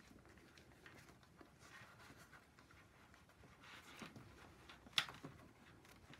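Near silence with faint handling noise as a leather jockstrap and silicone packer are worked by hand, and a single sharp click about five seconds in.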